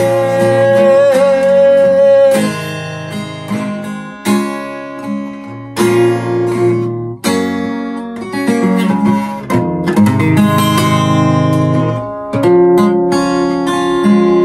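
Capoed Fender steel-string acoustic guitar strummed and picked in a slow closing passage, a run of separate chords with short pauses between them. A man's held sung note carries over the first chords and ends about two seconds in.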